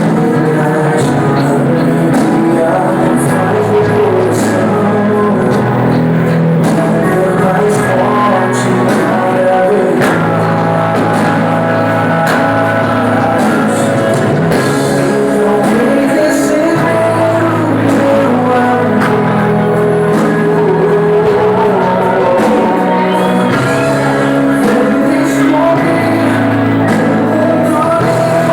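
Music: a song with a singing voice over instruments, playing at a steady, loud level throughout.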